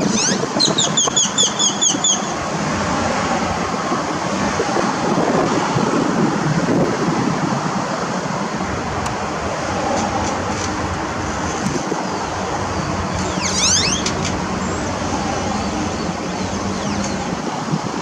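Steady roadside traffic and vehicle noise. A quick run of about nine short high chirps in the first two seconds, and a high sweeping whistle about two-thirds of the way through.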